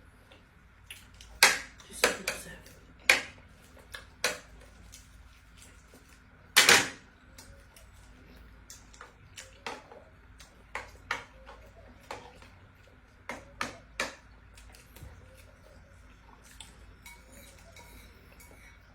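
Spoons and dishes clinking and knocking irregularly as people eat, with the loudest knocks in the first seven seconds and lighter clicks after.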